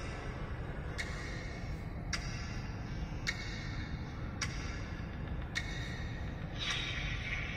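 Promotional video soundtrack playing from the LCD video-brochure box's small built-in speaker: sharp ticking strikes about once a second, each with a short ring, like a clock-tick beat. A hiss comes in near the end.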